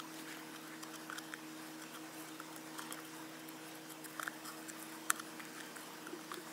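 Faint scrapes and small ticks of a plastic spreader working polyester filler into scratches on a wheel rim, the sharpest tick about five seconds in, over a steady low hum.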